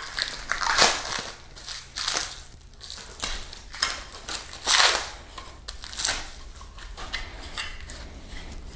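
Plastic shrink wrap crinkling and tearing in irregular bursts as it is peeled off a scooter's armrests by hand.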